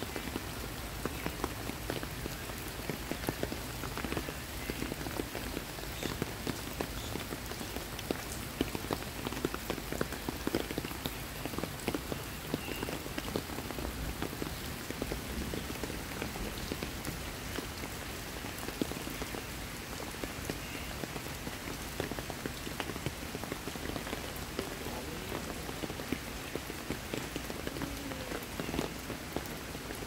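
Steady rain falling on leaves and wet paving: a dense patter of many separate drop hits.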